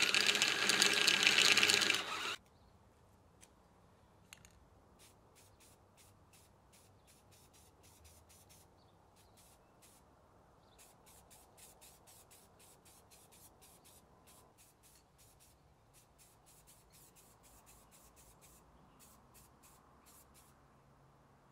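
DeWalt XR cordless drill running under load, boring a hole through an aluminium bracket held in a vise, then stopping suddenly about two seconds in. Near silence follows, with only faint scattered ticks.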